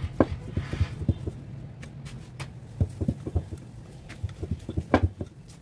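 A rolling pin knocking and rolling on a round board as chapati dough is rolled out: a run of irregular light knocks.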